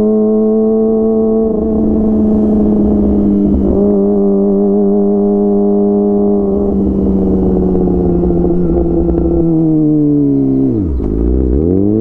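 Kawasaki ZX-25R's 249 cc inline-four running through a DX Generation Pro Race full-system aftermarket exhaust, heard from on the bike while riding at a steady part throttle. It eases off slowly, and a little before the end the revs fall sharply and then rise again.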